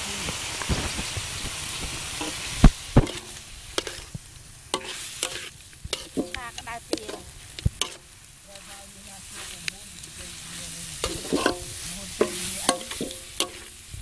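A metal spoon clanking and scraping against a large metal wok as duck pieces are stir-fried, with a frying sizzle. The sizzle is strongest in the first few seconds; two hard clanks come about three seconds in.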